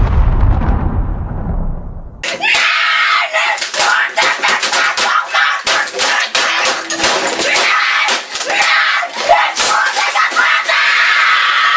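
A deep boom's rumble dies away over the first two seconds. Then a boy screams continuously over a rapid, irregular string of sharp smacks and crashes.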